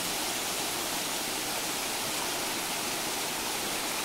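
Stream water pouring down a small waterfall: a steady, even rushing.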